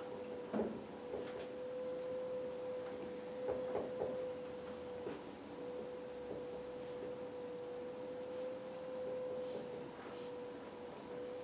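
A steady hum held on one pitch, with a faint overtone. Now and then come soft taps and strokes of a dry-erase marker on a whiteboard, most clearly about half a second in and around four seconds in.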